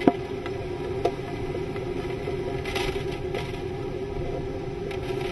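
Hurricane-force wind and rain lashing against glass, heard from inside as a dense, steady noise with a low hum underneath. There is a sharp knock just after the start and a smaller one about a second in.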